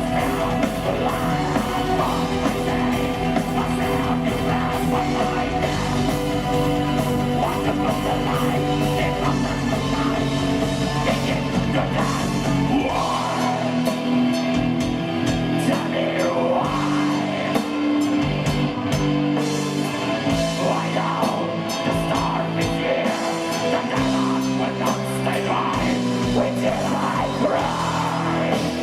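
Live doom/gothic metal band playing an instrumental passage: distorted guitars, bass, keyboards and drum kit. About 13 seconds in, the deep bass drops away and the music continues lighter in the low end, with drum hits coming through.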